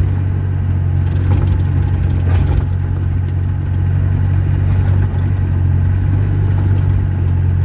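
Heavy diesel engine of logging machinery running steadily with a deep, loud hum, and a single sharp knock about two and a half seconds in.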